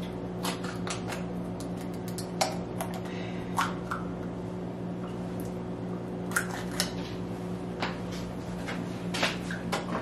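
Scattered light clicks and taps of tableware, a syrup bottle and utensils on a plate, over a steady low hum.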